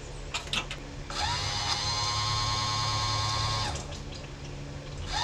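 The 1968 Cutlass convertible top's electric motor and hydraulic pump start after a couple of short clicks, run with a steady whine for about two and a half seconds, and stop. The system has just been filled with oil and is being run to bleed it.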